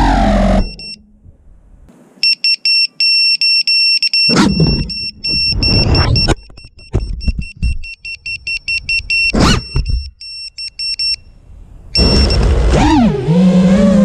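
An FPV racing quadcopter's brushless motors whine, then cut out about half a second in as it crashes upside down. Its onboard buzzer then beeps rapidly and evenly for several seconds, broken twice by short bursts of the motors, turtle-mode attempts to flip the craft back over. About twelve seconds in, the motors spin up again with a rising, shifting whine as it takes off.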